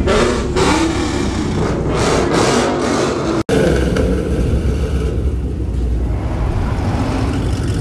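Car engines revving and rumbling loudly, with repeated surges for the first few seconds. A sudden break comes about three and a half seconds in, and a steadier low engine rumble follows.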